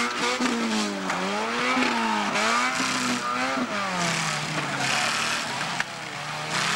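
Engines of several autocross cars revving up and down on a dirt track, the pitch rising and falling every second or so as the cars accelerate and lift off. There is a single sharp knock near the end.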